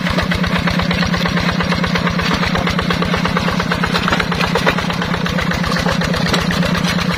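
A two-wheel hand tractor's single-cylinder diesel engine runs steadily under load with a fast, even beat as its cage wheels pull through the flooded paddy mud.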